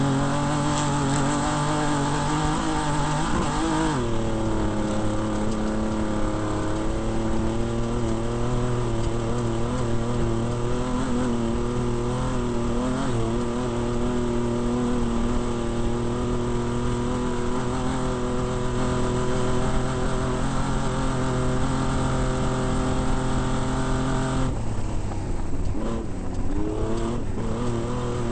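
Off-road race vehicle's engine running hard at steady high revs, with a hiss of wind and road noise over it. The engine pitch dips briefly about three seconds in and again near the end, then picks back up.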